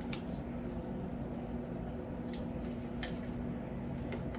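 Steady low room hum with one even tone, with a few faint light clicks and taps from a plastic compact powder case being handled.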